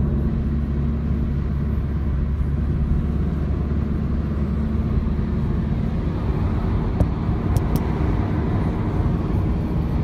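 Steady road and wind noise inside a small sedan's cabin at motorway speed, picked up close to the side window: a low drone of engine and tyres under a light rush of wind. Only a little wind noise comes past the door seal, which has been reinforced with an added weatherstrip. A couple of small clicks come about seven seconds in.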